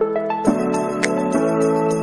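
Background music: a light instrumental tune with steady sustained notes and short, evenly repeated high notes over them.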